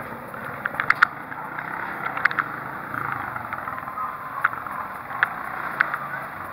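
Scattered sharp cracks of firecrackers going off at irregular intervals over a steady hum of street noise.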